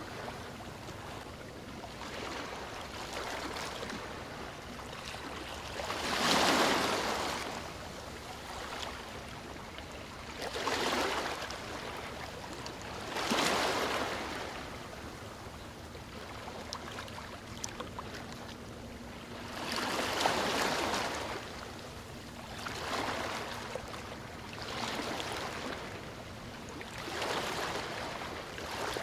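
Sea waves washing onto a shore, each swell rising and falling away, arriving irregularly every few seconds over a steady wash of water.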